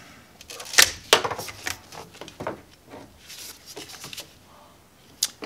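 Wire cutters snapping through a wire with a sharp snip, a second snap just after, then lighter clicks and rustling of the cable and tool being handled.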